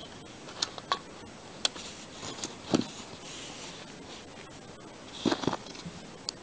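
Scattered clicks and knocks of LEGO plastic parts being handled, with the loudest knock near the middle and a quick cluster of clicks about five seconds in.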